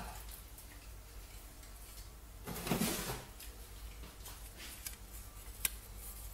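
Quiet handling noises as a roll of packing tape is fetched: a brief rustling clatter about two and a half seconds in and a single sharp click near the end.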